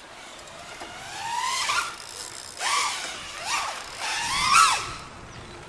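FPV quadcopter's brushless motors and propellers whining, the pitch climbing and dropping with the throttle. There is a slow rise at first, then three quick sharp revs, the last and loudest about four and a half seconds in.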